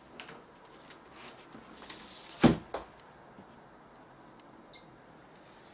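A sharp clunk about halfway through, followed by a lighter knock, as the TV set is handled to switch it into standby; a very short high chirp comes near the end.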